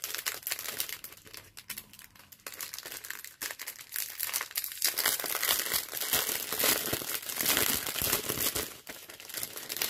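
Clear plastic bags of diamond-painting drills crinkling and rustling as they are handled, loudness rising and falling irregularly.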